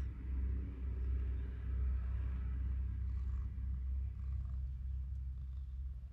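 Domestic cat in labour purring: a low, steady, continuous rumble.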